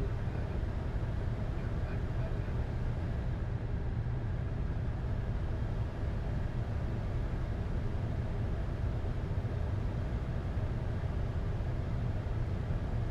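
Steady flight-deck noise of a Boeing 747-8 in flight: a constant low rumble with a broad hiss of air and engine noise above it.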